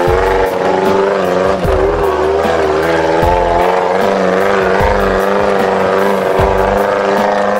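Off-road 4x4's engine running as it drives along a rough dirt track, its pitch wavering, under background music with a steady beat.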